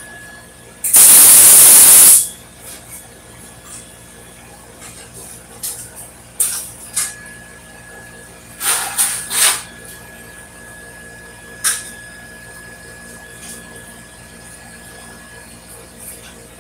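MIG welder's arc: one loud hiss of about a second near the start, then several short, quieter bursts later on, typical of tack welds. A steady low hum underneath.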